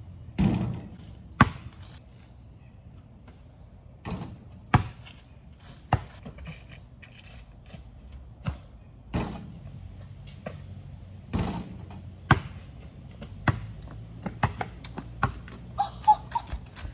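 Basketball shots and bounces: sharp thuds of the ball off the backboard or rim and bouncing on the concrete driveway, irregular and a second or more apart, with a quicker run of lighter taps near the end.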